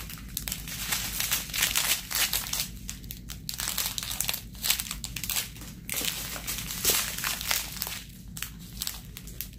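Strips of small plastic drill bags crinkling and crackling as they are handled and unrolled, with irregular crackles throughout.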